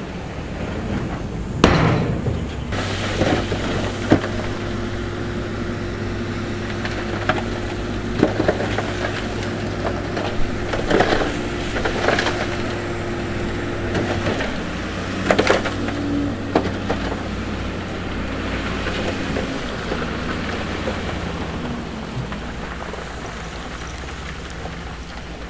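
Heavy construction machinery's diesel engine running steadily under load, with scattered sharp knocks and clatters of rock being pushed and dropped, the loudest about 2 s and 15 s in.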